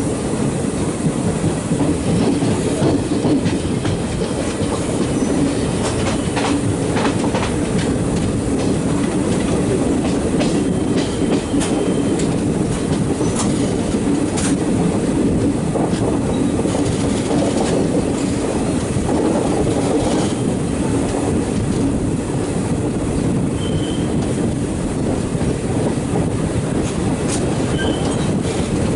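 Kerala Express passenger train running past steadily, its coach wheels rumbling and clattering over rail joints with scattered clicks. A few brief, faint wheel squeals are heard.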